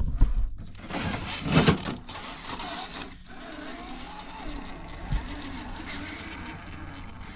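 Electric motor and gear drive of an RC scale crawler whining as it crawls over creek rock. There are a few knocks and scrapes in the first two seconds, then the whine wavers up and down in pitch with the throttle.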